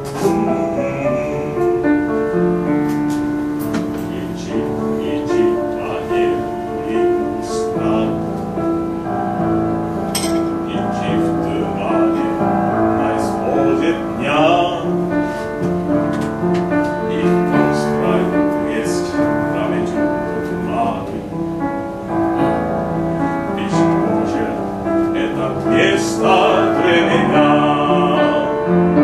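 A man singing a slow, mournful song in Russian with piano accompaniment.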